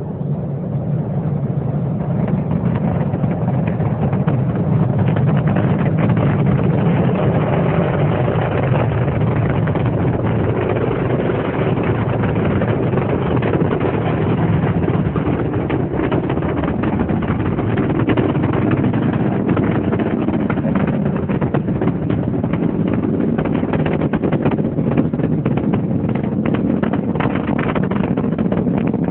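Space Shuttle Atlantis's launch heard from about three miles away: a continuous deep rumble from the solid rocket boosters and main engines, with a crackle running through it. It builds over the first few seconds, then holds steady, and the crackle grows sharper near the end.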